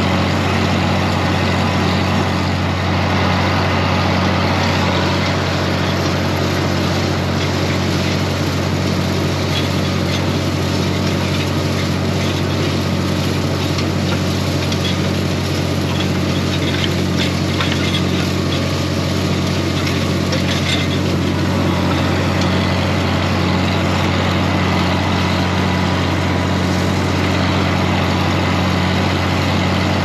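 An older open-station tractor's engine running steadily as it pulls a wheel rake through hay. A light clatter comes through over the middle stretch.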